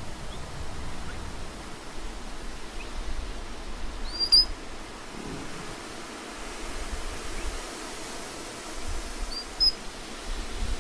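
Two short, high chirps from an animal about five seconds apart, each rising sharply and then holding, over a steady hiss of outdoor background noise.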